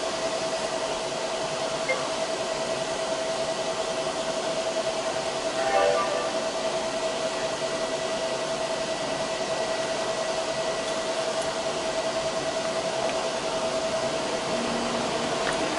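Steady rushing of a car's air-conditioning blower inside the cabin, with a faint steady whine under it and a short faint sound about six seconds in.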